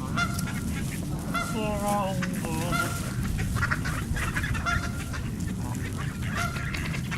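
A group of birds calling over and over in short, repeated calls, against a steady low rumble.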